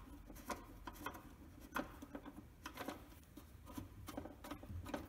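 Light, irregular clicks, taps and scrapes of hands working the butterfly nuts loose on a Datsun 240Z's air cleaner housing, over its SU carburetors.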